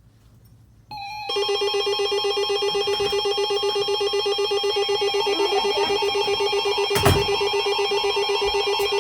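Weather radio alert alarm going off for a severe thunderstorm warning: a loud, harsh, rapidly pulsing electronic tone that starts about a second in and holds steady. A single knock sounds about seven seconds in.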